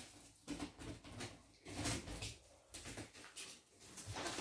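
Faint handling sounds of hands on a plastic-wrapped shipping box: a few short, scattered knocks and rustles.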